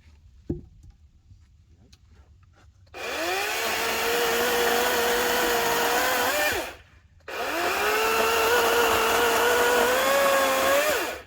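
Cordless 80-volt electric chainsaw (Workforce 18-inch) run twice, each time spinning up quickly to a steady whine, held for about three and a half seconds with a slight waver in pitch, then let off, with a short pause between the two runs. A single click comes about half a second in.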